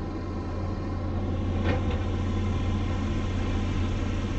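Heavy diesel construction equipment engine running steadily with a low drone, with one short knock about a second and a half in.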